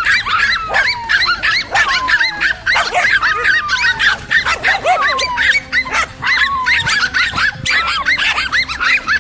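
Several dogs barking and yelping nonstop in a rapid, overlapping stream of high yips, with a few falling whines.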